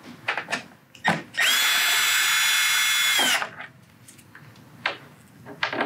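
Cordless drill-driver spinning for about two seconds as it backs out a Phillips screw, a steady whine that dips in pitch as it stops. Light clicks of handling come before and after it.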